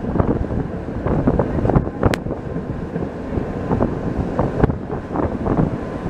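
Electric tram running along its rails, heard from aboard: a steady rumble full of knocks and rattles from the wheels and car body, with one sharp click about two seconds in.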